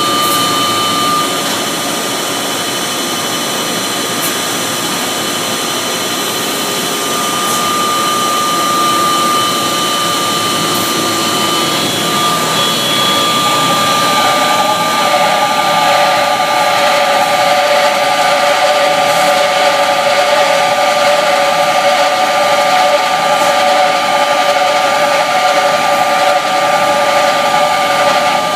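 Belt-driven machine running with a steady whine from its V-belt drive, fitted with a new main-unit pulley and V-belt, which is slipping; the owner suspects a bearing fault. About halfway through, a lower squealing tone comes in and the noise grows a little louder.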